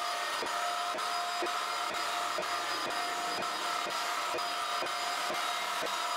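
Domestic floor polisher fitted with white non-abrasive fibre pads, running steadily over a wet slurry of water and marble-polishing powder on a marble floor during the polishing stage. Its motor gives a steady whine with a regular tick about twice a second.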